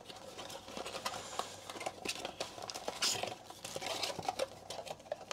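Cardboard blaster box of 2021 Panini Prizm Draft Picks cards being opened by hand: a run of small taps and rustles as the flaps are pushed open and the foil card packs are pulled out, with a louder scraping rustle about three seconds in.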